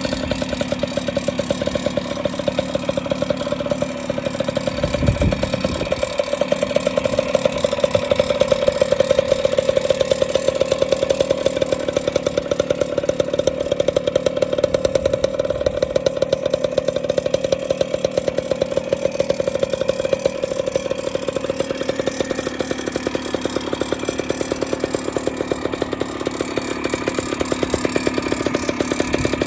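1998 Yamaha RT100's small single-cylinder two-stroke engine idling steadily on its stand, with a fast, even exhaust beat.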